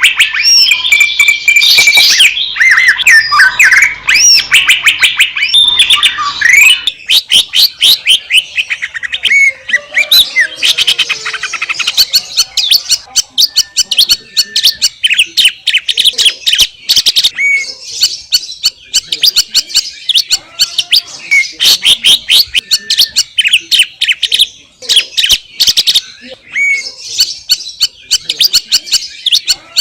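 Green leafbird (cucak ijo) singing a fast, unbroken stream of varied chirps, trills and whistled notes; about seven seconds in the song changes to a rapid run of short, sharp notes.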